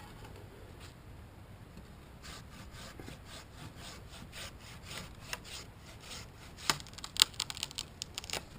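Handsaw cutting through poplar wood in steady back-and-forth strokes, about three a second, starting about two seconds in. A few sharp cracks come near the end.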